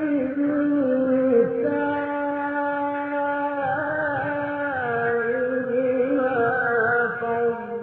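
A male Quran reciter chanting in the slow melodic mujawwad style. He holds long, ornamented notes that step between pitches without a break.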